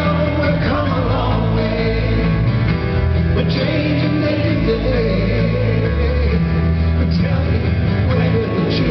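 Live performance of a folk-rock song: acoustic guitar played over steady low bass notes, with a sung melody.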